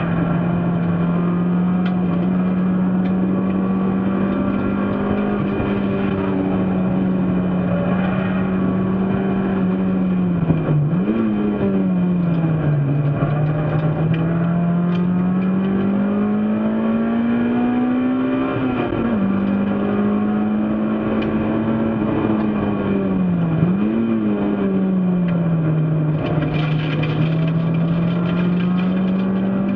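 Racing car engine being driven hard around a circuit. Its note rises under acceleration and sags off the throttle, with a quick throttle blip on a downshift about a third of the way in and again about three-quarters of the way through, and a sudden drop in pitch at an upshift a little past halfway.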